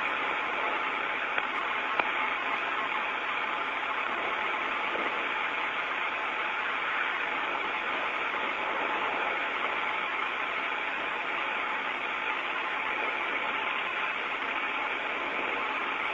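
Steady radio hiss on an open space-to-ground voice channel between transmissions, thin and narrow like a radio link, with two faint clicks a second or two in.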